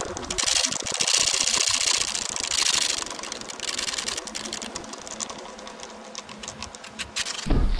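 Rapid mechanical clicking and clattering, densest over the first few seconds, then thinning to scattered clicks. A loud low sound comes in near the end.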